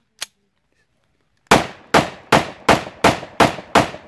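A short click, then seven shots from a locally made 30 bore (7.62×25mm Tokarev) steel semi-automatic pistol, fired in quick succession about 0.4 s apart, each with a brief echo.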